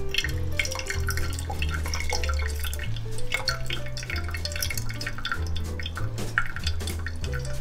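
Hot water poured in a thin stream from a gooseneck kettle onto coffee grounds in a cores gold mesh filter dripper, for the third pour of a pour-over brew. Background music with a steady, stepping bass line plays over it.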